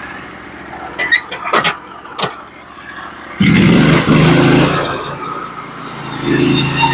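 Norwood HD36v2 portable band sawmill's engine running, with a few sharp clicks. About halfway through it abruptly gets much louder.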